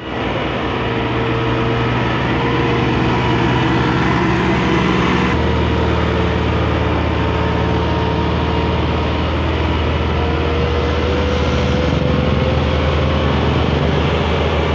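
Massey Ferguson 360 tractor's diesel engine running steadily under load, pulling a heavily loaded sugarcane trolley; the engine note shifts about five seconds in.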